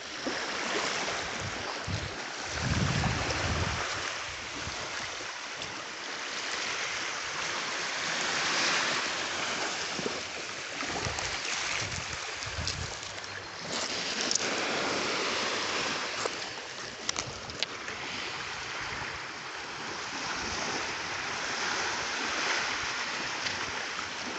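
Waves washing on the beach in a steady wash that swells and fades, with a few gusts of wind buffeting the microphone.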